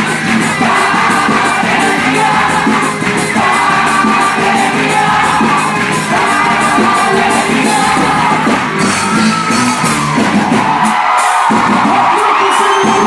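Loud festive music with a sung melody over a steady percussion beat, with shouts and whoops on top. The bass drops out for a moment near the end.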